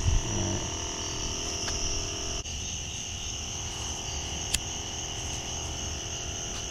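Steady high-pitched insect chorus in two constant bands over a low background hum, with one sharp click about four and a half seconds in.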